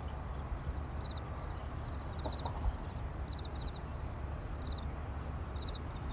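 Insects chirping: short pulsed chirps of three to five beats repeating roughly once a second over a steady high insect hum and a low rumble.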